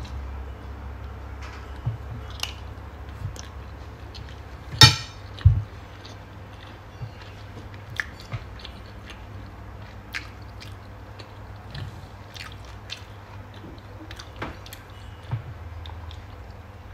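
A person eating rice and smoked fish with a spoon and fork: chewing, with scattered light clicks of the utensils on a plate. The loudest is a sharp clink about five seconds in, followed by a low thump.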